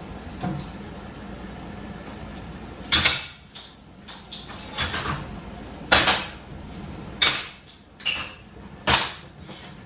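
Pots and pans being handled on a kitchen stove: a string of about eight sharp clanks and knocks at irregular spacing, some with a brief metallic ring.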